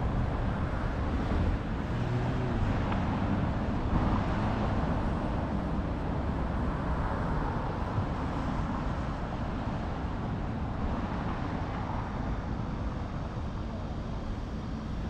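Steady city street ambience with a low rumble of traffic.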